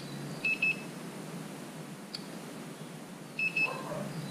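Handheld infrared thermometer gun beeping as its trigger is pulled to take a reading: two short runs of high pips, about three seconds apart.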